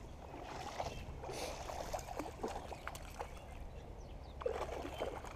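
Water splashing and sloshing as a hooked brown trout thrashes at the surface, with a spinning reel being cranked to bring it in.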